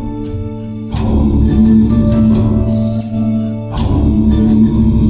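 Recorded music played back over KEF Blade loudspeakers: an instrumental passage with strong sustained bass notes, guitar and percussion hits.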